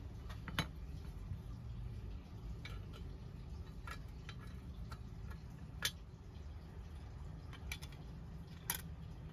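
Faint scattered clicks and taps of a die-cast metal toy truck body and its replacement rear door being handled and fitted, about eight small clicks spread irregularly over a low steady hum.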